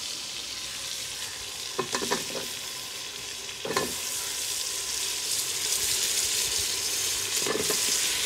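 Cut potatoes going into hot oil and masala in an aluminium pot, sizzling, while being stirred, with a few short knocks of metal against the pot. The sizzling grows louder a little under four seconds in.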